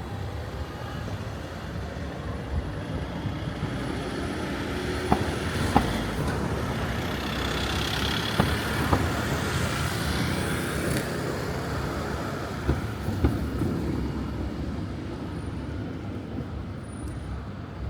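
City street traffic noise, with a motor vehicle passing close by that swells to its loudest about halfway through and then fades. A few sharp knocks or clicks stand out over it.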